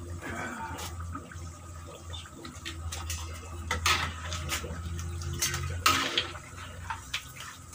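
Peyek deep-frying in oil in a metal wok, sizzling, while a steel spatula and a perforated metal skimmer scrape and clink against the wok as the crackers are turned and lifted out. The sharp clinks come in a cluster from about three and a half to six seconds in, over a steady low hum.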